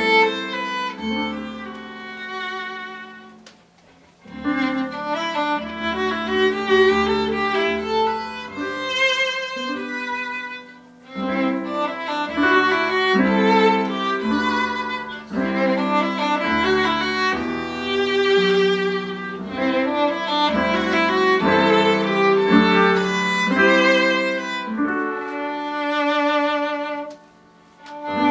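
Violin playing a slow melody with vibrato over lower held notes, in phrases with brief pauses about four seconds in and near the end.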